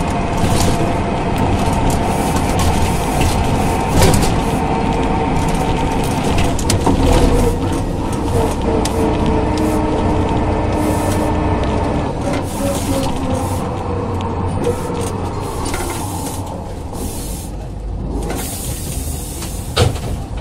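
Ikarus 415 city bus under way, its DAF LT 160 straight-six diesel and ZF 4HP 500 automatic gearbox running with a loud whine. The whine slides down in pitch and the sound eases off from about twelve seconds in as the bus slows. There is a sharp knock about four seconds in and a brief hiss near the end.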